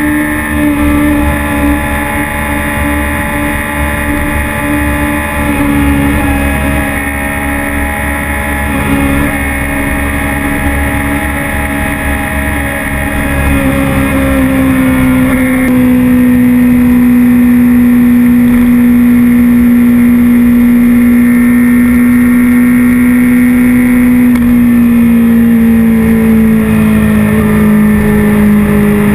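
Sport motorcycle's inline-four engine running at a steady cruising speed, picked up by a camera on the bike with wind rushing past. About halfway through the engine note grows louder and drops a little in pitch, then sinks slowly lower near the end.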